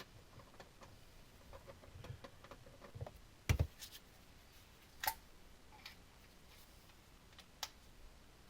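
Scattered light clicks and knocks, with one louder thump about three and a half seconds in and sharp clicks near five and seven and a half seconds.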